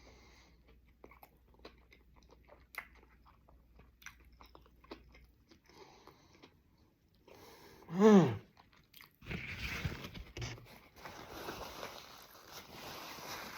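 Someone biting into and chewing a spicy chicken sandwich: faint wet mouth clicks at first and a short hummed "mm" about eight seconds in. A second later come denser crunching, chewing sounds that carry on to the end.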